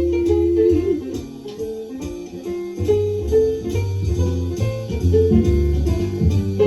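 Jazz ballad recording played back through a GV300B+ 300B tube amplifier and an Altec 604-8G speaker, heard in the room: a held vocal note fades out under a second in, then an instrumental passage of guitar notes, with low bass notes coming back in about three seconds in.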